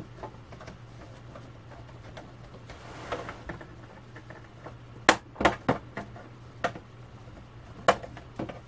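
Plastic snap-fit clips of an LG 32-inch monitor's back cover clicking and cracking loose as the case is pried apart by hand. Several sharp snaps come about five to eight seconds in, after a scraping rustle, over a steady low hum.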